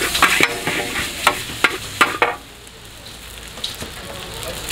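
Rice vermicelli stir-frying in a hot wok: sizzling, with repeated scrapes and clacks of a metal spatula against the wok. The strokes stop about two seconds in, leaving a quieter sizzle.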